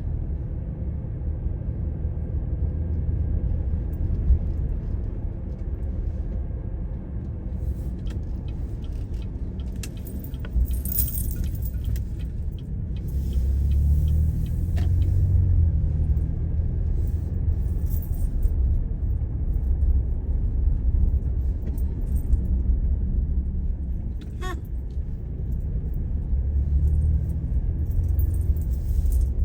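Steady low rumble of a vehicle ride in traffic, heard from inside, with light rattling around the middle and a sharp rattle near the end.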